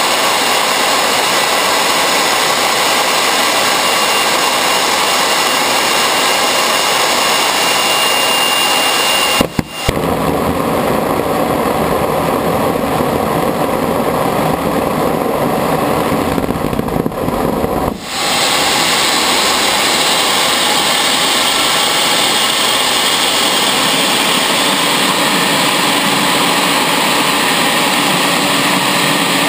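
Homemade turbojet built from a small turbocharger running steadily with a loud jet rush and a faint high whistle. About ten seconds in, its afterburner lights and the sound turns deeper and rougher for about eight seconds, then drops out and the plain jet runs on. The afterburner is getting too much fuel.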